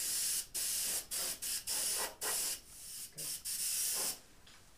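Airbrush spraying pearl base-coat paint onto a fish replica: a hiss of air and paint in short on-off bursts as the trigger is worked, stopping a little after four seconds in.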